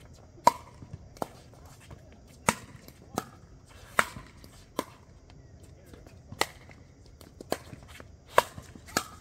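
Pickleball rally: paddles striking the hard plastic ball in sharp pops, about one to two a second, some loud and some fainter.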